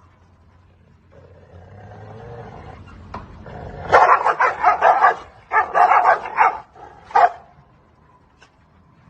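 A dog makes a low, wavering drawn-out grumble that grows louder, then breaks into two quick runs of loud barks, about four a second, and one last bark.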